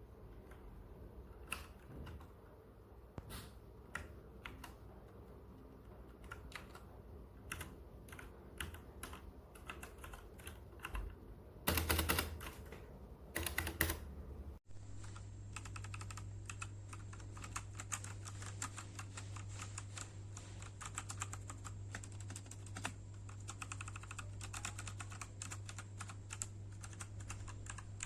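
Typing on a DAREU EK87 V2 mechanical gaming keyboard. It starts with scattered keystrokes, has two short rapid flurries of keys about twelve and thirteen and a half seconds in, then after an abrupt cut about halfway it turns to continuous fast typing over a steady low hum.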